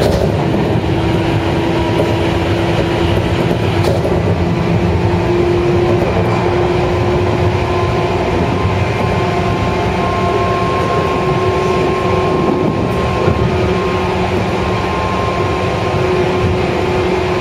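A JR West 103 series electric commuter train running, heard from inside the car: steady wheel and rail rumble with the whine of its MT55 traction motors humming at a nearly constant pitch, and a few faint knocks from the track.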